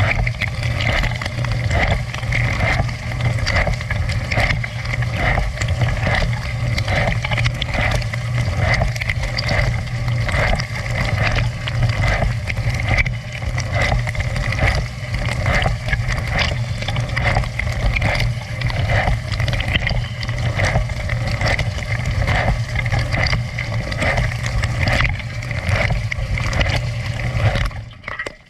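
Dishwasher running: a steady low pump hum under water spraying and sloshing inside the tub, pulsing in a regular rhythm. It cuts off suddenly near the end.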